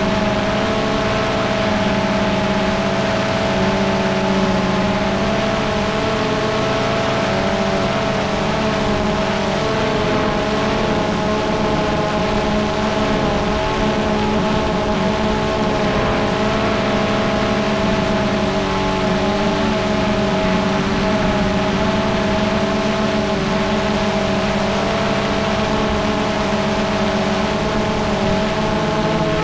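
Multirotor drone's motors and propellers running steadily, a whine made of several tones at different pitches, each wavering slightly as the motor speeds shift.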